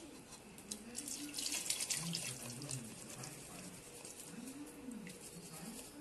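Liquid splashing and dripping as palm-fruit pulp is squeezed by hand through a wire-mesh strainer into a pot of soup, busiest between about one and three seconds in.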